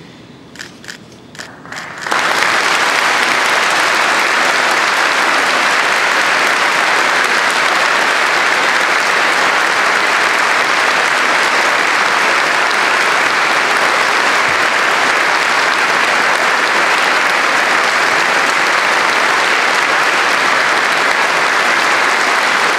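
A congregation applauding: a few scattered claps, then from about two seconds in a full, steady round of applause that cuts off suddenly at the end.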